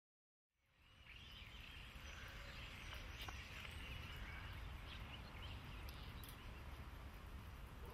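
Faint outdoor ambience fading in about half a second in: a steady low rumble with light, scattered chirping from a flock of small birds perched on overhead wires.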